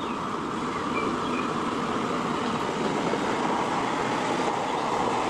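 Steady, even rushing noise of a muddy toy dump truck being washed in water.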